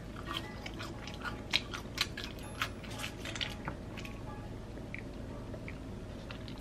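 Close-miked chewing of French fries: many small wet mouth clicks and soft crunches, thinning out in the second half.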